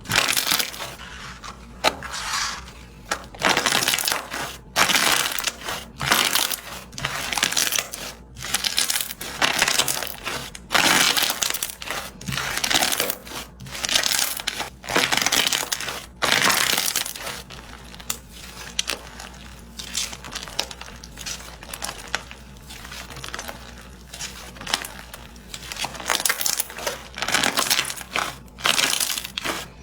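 Slime being squished and pressed, making repeated sticky, crackling pops about once a second, softer for a few seconds past the middle.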